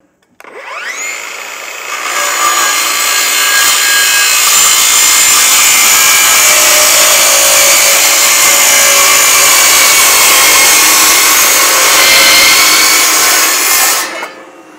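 Circular saw spinning up with a rising whine, then cutting through a powder-coated galvanized steel deck joist with a loud, steady, shrill scream of blade on metal, stopping abruptly near the end.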